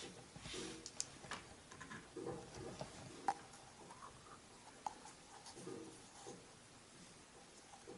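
Faint handling sounds of small model parts and a plastic glue bottle at a work table: scattered light clicks and taps with soft rustles.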